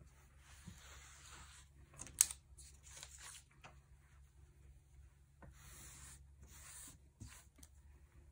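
Damp cloth rag wiped along the strip at the front of a knitting machine's needle bed, in three soft rubbing strokes, with one sharp click about two seconds in.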